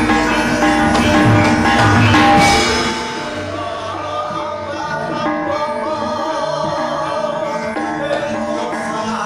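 Background music that drops in level about three seconds in.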